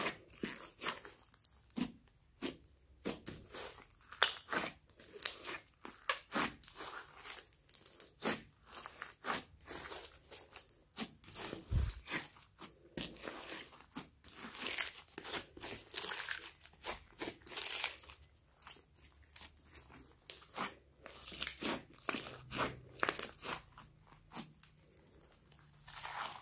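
Glossy slime mixed with clay and studded with small foam beads, squeezed and stretched by hands: an irregular run of short clicks, pops and squelches, several a second.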